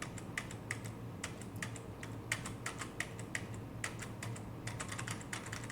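Typing on a laptop keyboard: a run of quick, irregular key clicks, as a search is typed in.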